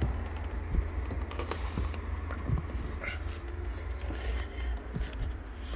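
Scattered knocks, bumps and rustling as a person climbs into a car's rear load space and handles the trim around an open access panel, over a steady low rumble.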